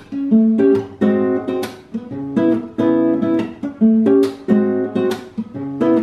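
Steel-string acoustic guitar, capoed, strummed and picked in a steady rhythm of repeated chords, with no voice.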